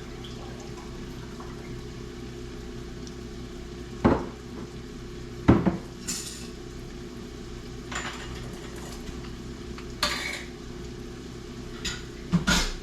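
Kitchen utensils and cookware clinking and knocking several times, over a steady low hum and a faint steady sizzle of vegetables softening in a pot.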